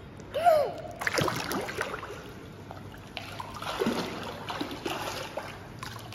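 Pool water splashing and sloshing as a toddler swims face-down, stroking and kicking, with a short vocal sound about half a second in.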